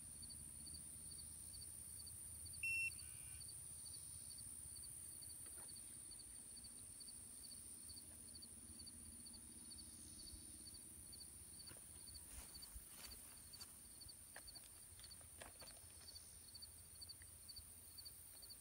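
Faint outdoor insect sound: a steady high hiss of insects with a cricket chirping about twice a second. A short, high note about three seconds in is the loudest sound, and faint light clicks and rustles come in from about twelve seconds on.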